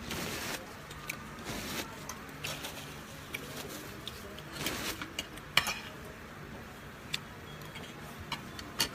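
Scattered clinks and knocks of cutlery on dishes while eating, with a few short scraping noises in between. The sharpest clinks come about halfway through and just before the end.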